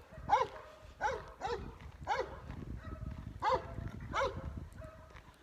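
A dog barking repeatedly, about six short barks spaced unevenly.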